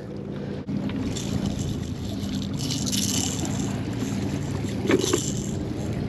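A steady low engine hum carries on throughout, with wind buffeting the microphone. There is a short scuff about five seconds in.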